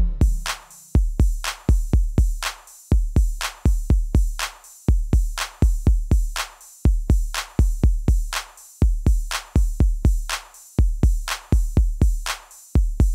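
Background music: a bare drum-machine beat of heavy kick drums and crisp hi-hat clicks in a repeating pattern, without melody.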